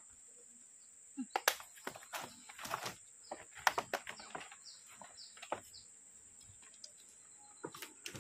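Irregular sharp knocks and clicks, in clusters between about one and six seconds in and again near the end, with a few short falling bird chirps among them.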